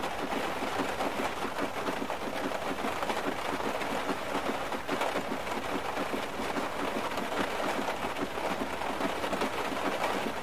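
Heavy rain beating steadily on a car's roof and windshield, heard from inside the cabin as a dense, unbroken patter.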